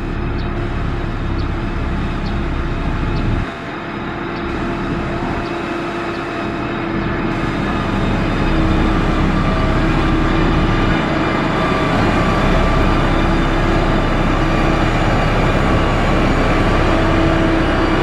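Heavy machine's diesel engine running steadily under load, a motor grader at work. The level dips suddenly about three and a half seconds in, then rises and holds steady.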